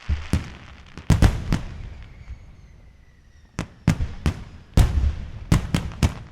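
Fireworks going off: about a dozen sharp bangs in two rapid clusters, with a low rumbling crackle between them and a faint falling whistle in the lull.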